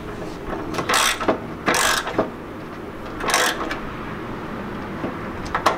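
Hand tool working the metal clamp on a freshly fitted lower radiator hose: three short rasping bursts about one, two and three and a half seconds in, with a few sharp metal clicks near the end.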